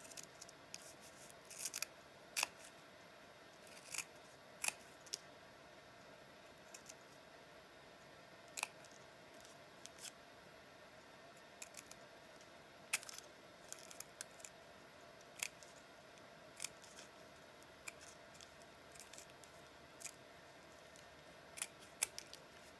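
Small spring-loaded snips cutting out a piece of fabric: short, sharp snips at irregular intervals, roughly one every second or two.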